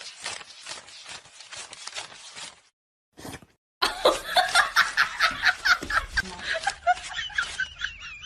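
Laughter in quick, repeated short bursts. The laughter breaks off for about a second partway through, then starts again louder and more sustained.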